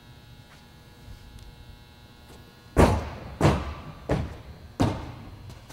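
Footfalls of an athlete doing alternate leg bounds, springing from right leg to left. There are four loud thuds about two-thirds of a second apart, starting about three seconds in, each echoing briefly in a large hall.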